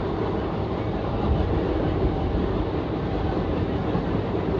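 Passenger train coaches running along the track: a steady rumble of wheels on rails, heard from an open coach doorway.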